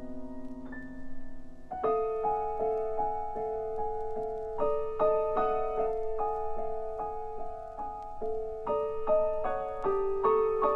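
Solo piano playing a slow contemporary classical piece: a held chord, then from about two seconds in a sustained middle note under repeated, slowly shifting upper notes that grow busier toward the end.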